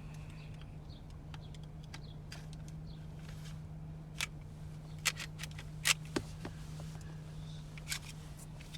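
Glock 44 pistol slide being worked onto the frame by hand: a few sharp clicks and scrapes about halfway through and another near the end, over a steady low hum.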